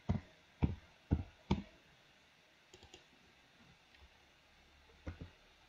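Computer keyboard and mouse clicks: four separate clicks about half a second apart, a couple of faint ones, then two quick clicks near the end.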